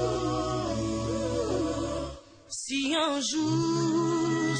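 Background music: a song with sung vocals over sustained low notes. It drops out briefly about halfway, then the singing resumes.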